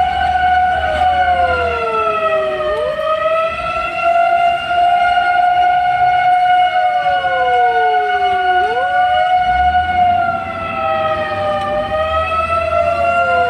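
Fire engine sirens: one holds a steady high tone while another falls in pitch over about two seconds and snaps back up, about every six seconds. A low engine rumble sits under it at the start and again in the last few seconds.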